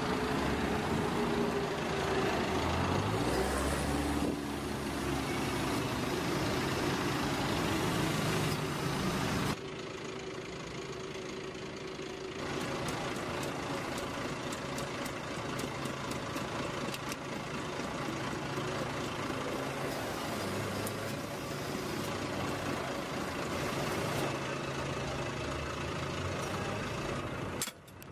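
Heavy vehicle engines running, the sound changing abruptly a few times as one clip gives way to another.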